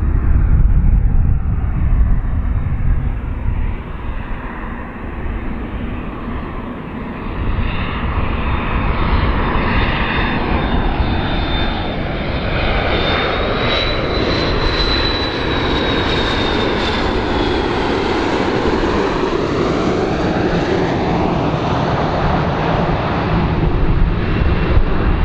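McDonnell Douglas MD-80-series airliner on approach, its tail-mounted Pratt & Whitney JT8D turbofans running loud and steady. A high whine rises a little and falls again around the middle, with sweeping changes in tone as the plane passes closer.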